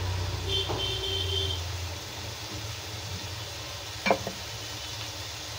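Potato-and-tomato sabzi frying in a kadhai on a gas burner, a steady low sizzle under a low hum that eases after about two seconds. A brief knock about four seconds in.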